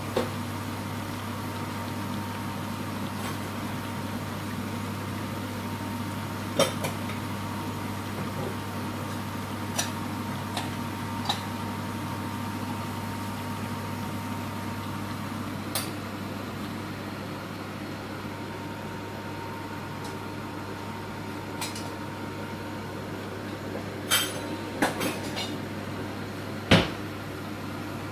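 Lentil pakoras deep-frying in hot oil in a kadai: a steady sizzle over a low hum. Scattered sharp clinks and knocks of kitchen utensils cut through it, clustering near the end.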